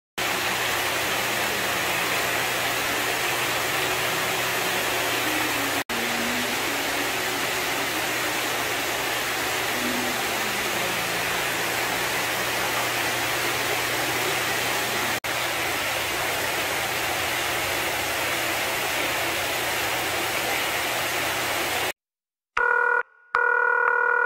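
Steady splashing hiss of water jets spraying into an indoor fishing pool, with faint voices under it. Near the end, after a brief silence, an electronic tone of several pitches sounding together comes in two or three pulses.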